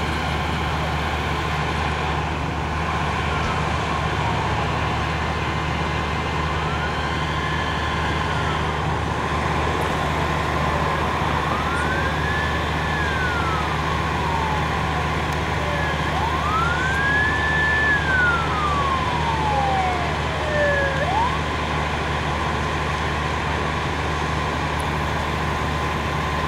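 Fire engine siren winding up quickly and falling slowly away three times, over the steady low running of idling fire engines and a steady hum.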